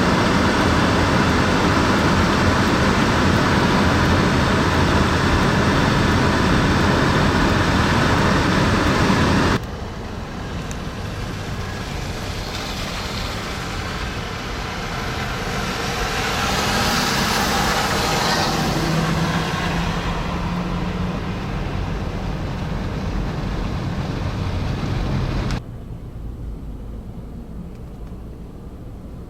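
Road traffic on snowy, icy city streets: a steady rush of vehicle and tyre noise, cut off abruptly about ten seconds in and again near the end. In the middle stretch a vehicle passes, its sound swelling and then fading.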